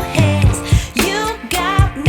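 Pop song with a woman singing over bass and a steady beat.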